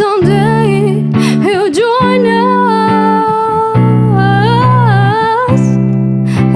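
A woman singing a slow melody with long held notes and vibrato, accompanied by a hollow-body archtop electric guitar playing sustained chords.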